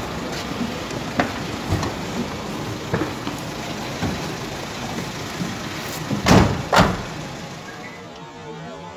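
Rough handheld phone audio of street bustle and handling noise, with scattered knocks and then two heavy thumps about half a second apart, some six seconds in. The noise thins out near the end.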